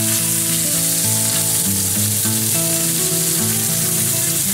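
Beef sizzling in hot oil and butter on a cast-iron bò né hot plate over a portable gas burner, a steady loud hiss, as metal tongs turn the meat. A tune of held notes plays underneath.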